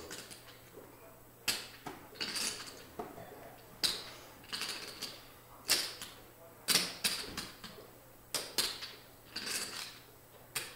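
Poker chips clicking together in quick clusters, about one every second or so, as a player handles his chip stack.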